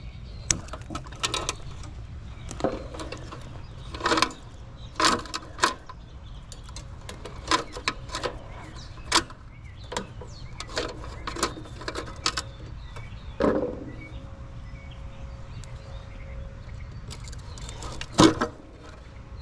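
Irregular clicks, knocks and light metallic rattles of tools and parts being handled while working on an air-conditioner condenser's fan motor, over a steady low hum. A few louder knocks stand out, the loudest near the end.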